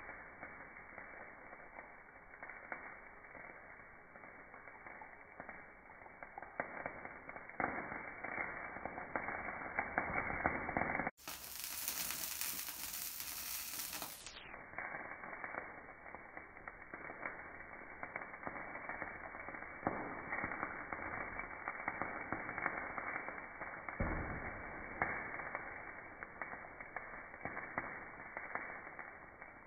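Fire under a grill crackling with many small pops, and the can chicken cooking over it. The sound breaks off abruptly about eleven seconds in, then carries on.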